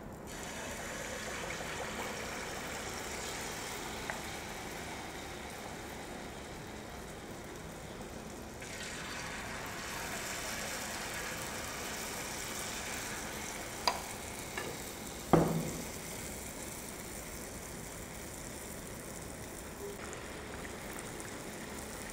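Spoonfuls of sweet wheat-flour batter deep-frying in hot oil in a kadhai, a steady sizzle that swells at the start and again about nine seconds in as more batter goes in. A few sharp clinks of the steel spoon come near the middle, the loudest of which is about fifteen seconds in.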